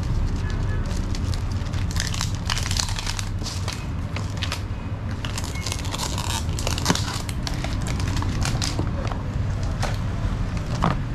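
Clear plastic shrink-wrap crinkling and tearing as it is peeled off a camera box, then cardboard packaging rustling as the box is opened, over a steady low background rumble.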